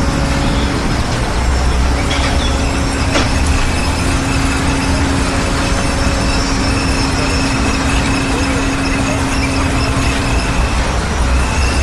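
Heavy construction vehicle engine running steadily with a low rumble, and a steady whine held from about two seconds in until near the end.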